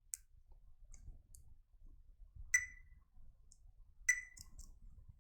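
Multimeter probes being placed on diodes on a power supply circuit board, giving a few light clicks and two short, high beeps from the meter, the stronger at about two and a half and four seconds in.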